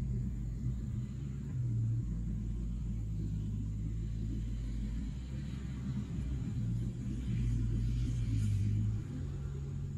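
Heavy diesel engines of a Hitachi mining excavator and a BelAZ haul truck running with a deep, steady rumble, swelling as the excavator works about two seconds in and again from about seven to nine seconds in.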